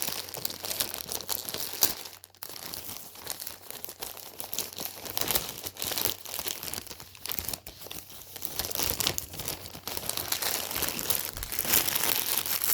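Packaging crinkling and rustling as a clothing package is handled and worked open, with many short sharp crackles.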